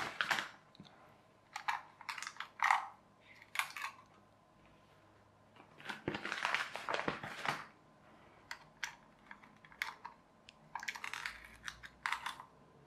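Plastic clicks, taps and scrapes of a small toy RC car being handled and turned over on a tabletop, with a longer rustling scrape about six seconds in. Near the end, a small screwdriver clicks against the corroded AA batteries in the car's battery box.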